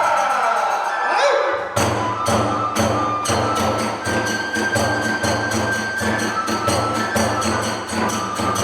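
A chanted kagura line trails off on a falling pitch, then about two seconds in the kagura ensemble strikes up: taiko drums and tebyoshi hand cymbals in a fast, even beat of about three strokes a second, with the kagura flute's held high notes above.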